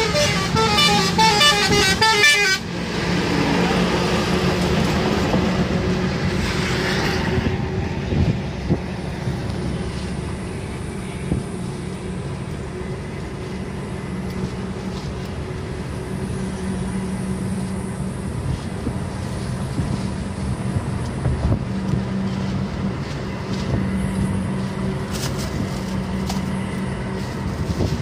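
Engine and road noise inside a moving Tata car's cabin, with a steady low hum. For the first two and a half seconds a pitched sound with several tones pulses rapidly over it, then a rushing noise runs for about five seconds before settling back to the steady cabin drone.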